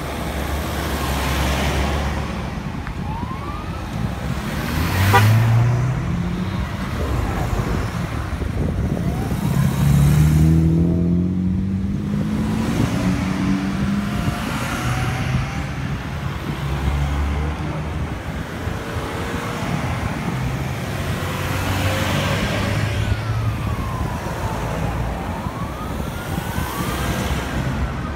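A line of cars and security patrol vehicles driving past one after another, their engines rising in pitch as they speed up, loudest about five and ten seconds in. Sirens wail up and down intermittently, most clearly in the last few seconds.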